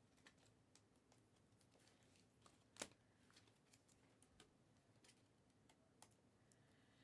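Near silence with faint, scattered clicks and taps of small objects being handled; one sharper click about three seconds in.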